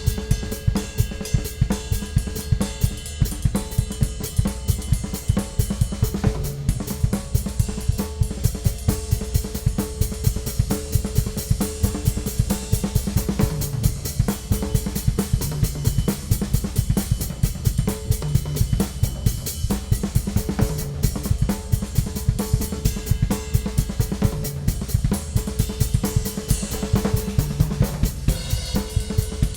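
Ludwig Classic Maple drum kit played in a steady, continuous groove: bass drum, snare and hi-hat struck in a driving rhythm under a wash of cymbals.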